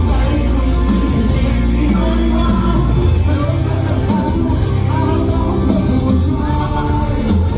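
Loud live pop music with singing and a heavy, steady bass line, played through a hall sound system.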